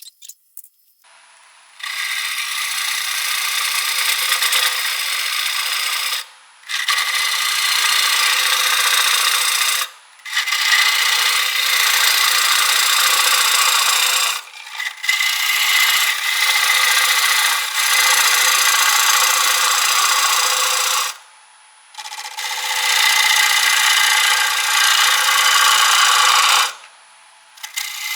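Sharp turning tool cutting green, wet walnut spinning on a wood lathe at about 900 RPM: a steady hiss of shavings in about six passes, each a few seconds long, with brief breaks between.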